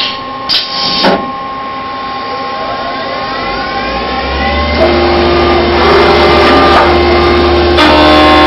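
Milltronics VM-15 CNC vertical mill starting a cut. There are two knocks in the first second, and the spindle spins up with a rising whine over a few seconds. About halfway through, a low hum from the coolant flow and the noise of the end mill cutting come in, and the sound grows louder.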